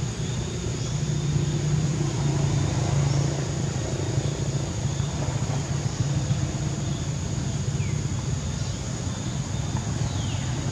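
Outdoor ambience: a steady low hum under a constant thin high whine, with a few short falling chirps near the end.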